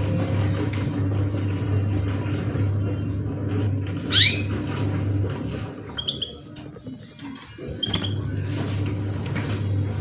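Caged finches chirping: one loud rising call about four seconds in, then short high chirps about six and eight seconds in, over a steady low hum.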